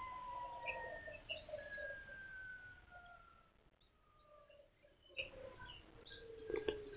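Electric drive and main-rotor gearing of a 500-size RC scale UH-1H helicopter with a newly replaced main shaft bearing, whining faintly as the rotor spins down, the pitch sliding slowly lower. The whine fades and a second, lower falling whine comes up near the end, with a few short chirps over it.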